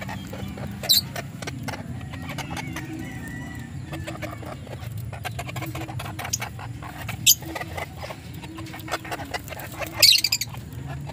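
Golden Sebright and Black Rosecomb bantam chickens clucking softly and scratching about in a wire cage. Three short, sharp sounds cut through, about a second in, past the middle, and loudest near the end.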